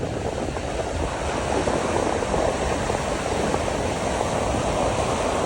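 Sea surf washing in steadily, with wind blowing.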